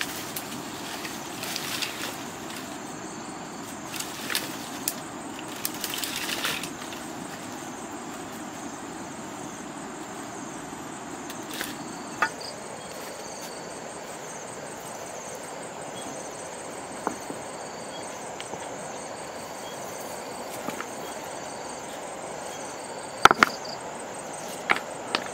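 Dry branches rustling in bursts as an armful of firewood is handled, then, near the end, a few sharp knocks of stone on stone as fireplace stones are set in place, over a steady outdoor background hiss.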